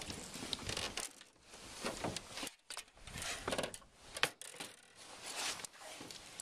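Landing net with a big bass in it being hauled out of the water and over the side onto the boat deck: irregular rustling, scraping and knocks of the net's mesh and frame being handled, coming and going in uneven bursts.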